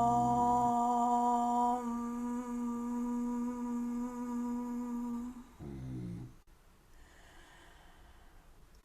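A woman chanting Om on one long, steady pitch. The open "O" closes into a hummed "mm" about two seconds in, and the chant stops a little after five seconds.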